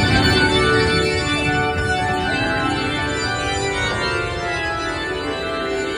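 Organ music from the ride's show soundtrack, with held notes that change every second or so, cutting in suddenly at the start over a low rumble from the moving mine train.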